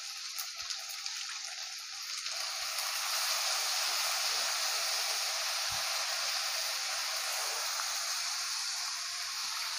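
Soaked rice sevai sizzling in hot oil in an iron kadai as more of it is added to the tempering: a steady sizzle that grows louder about two and a half seconds in, with a few faint ticks.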